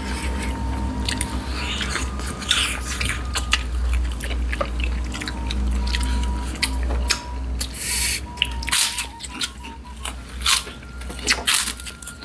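Chewing on spicy chicken feet: an irregular run of smacking clicks, louder in the second half, over a steady low hum.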